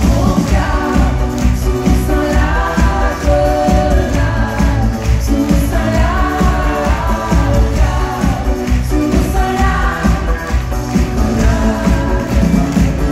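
Live pop band and a woman singing, heard from the audience in a large arena: a heavy bass and a steady drum beat under the sung melody.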